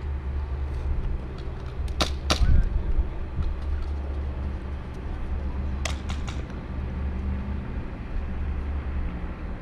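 Steady low rumble of wind on the microphone, broken by sharp cracks of airsoft gunfire: two close together about two seconds in, and a quick run of three about six seconds in.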